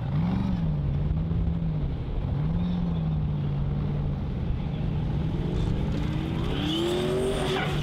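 Formula Offroad race buggy's engine revving under load on a dirt climb: its pitch rises and falls twice, holds, then climbs steadily over the last few seconds.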